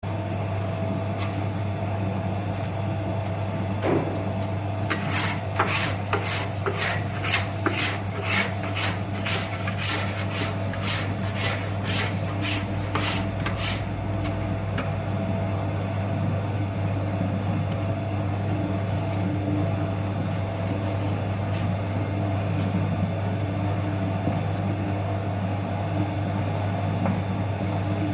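A steady low machine hum throughout, with a run of about twenty quick rubbing or scraping strokes at roughly two a second from about five seconds in until about fourteen seconds in.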